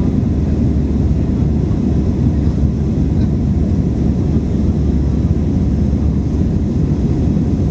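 Steady low rumble of an Airbus airliner heard from inside the cabin: engines at climb power and airflow over the fuselage while climbing through cloud after takeoff.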